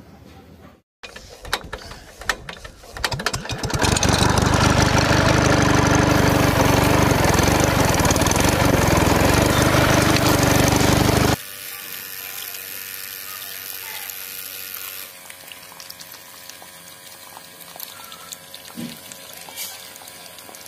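Miniature model water pump running, its small motor whirring while water gushes from the outlet pipe. It starts with a few clicks and rattles, runs loud and steady, then cuts off suddenly about eleven seconds in, leaving a much quieter steady hum.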